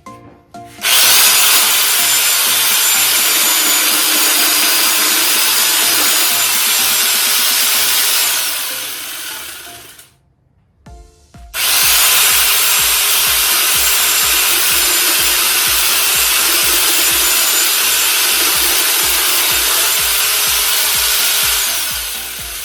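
Angle grinder fitted with a chainsaw attachment, cutting wood in two long runs of about nine seconds each, with a brief stop about ten seconds in. Each run tails off at its end as the cut finishes and the motor winds down.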